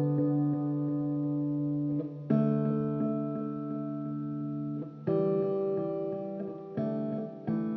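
Background music: slow guitar chords, each struck and left to ring and fade before the next, a new one about every two to three seconds.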